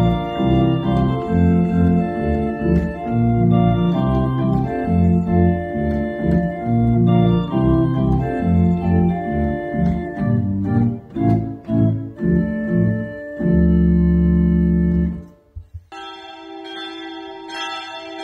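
Small pipe organ playing a sequence of sustained chords, ending on a long held chord about 13 seconds in. After a brief break, church bells ring near the end.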